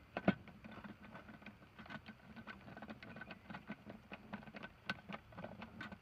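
Hand screwdriver tightening a screw that holds a GFCI outlet in a plastic weatherproof box: a faint, irregular run of small clicks and ticks, with one sharper click about a third of a second in.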